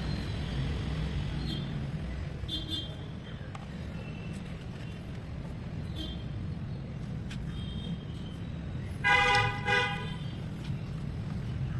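Road traffic with a steady low engine rumble and scattered short vehicle horn toots. A loud double horn blast comes about nine seconds in.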